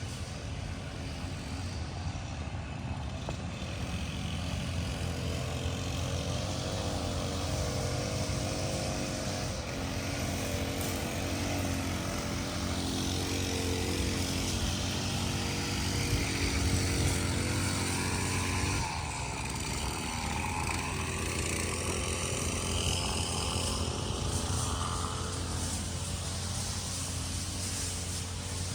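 Engine drone that builds to a peak about halfway, with a steady low hum under it and a whine that shifts in pitch in the second half.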